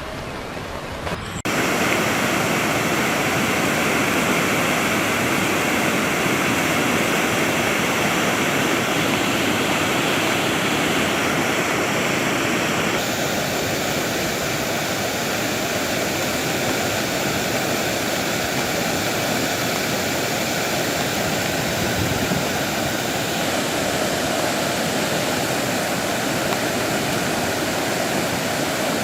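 Fast-flowing floodwater rushing: a loud, steady wash of water noise that comes in abruptly about a second in and changes in character about halfway through.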